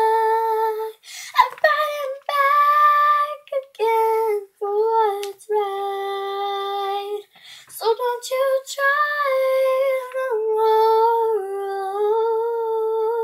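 A girl singing without accompaniment, holding long notes in phrases with short breaths between them.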